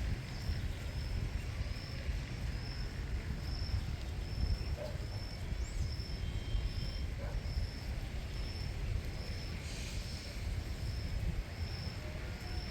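Outdoor background noise: a steady low rumble with a short high chirp repeating evenly about twice a second, like an insect calling.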